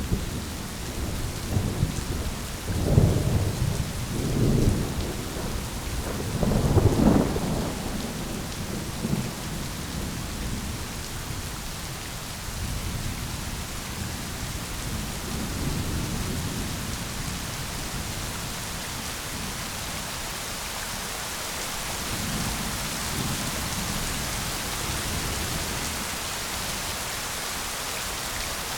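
Thunderstorm: steady rain with rolling thunder rumbling several times in the first eight seconds, loudest about seven seconds in, then fainter rumbles under the rain, whose hiss grows toward the end.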